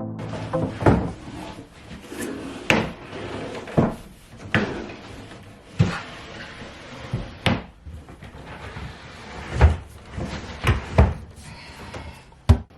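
Irregular knocks and bumps of a wooden storage bench being handled and set in place, with rustling and scraping between the knocks.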